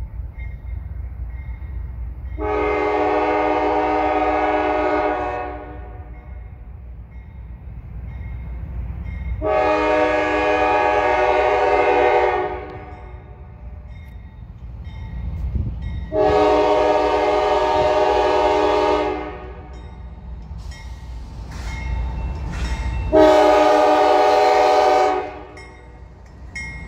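Nathan K5LA five-chime horn on an approaching Norfolk Southern GE diesel locomotive sounding for a grade crossing: four blasts of about two to three seconds each, the last one shorter, over the low rumble of the locomotive. A faint, evenly repeating ding of the crossing bell carries between the blasts.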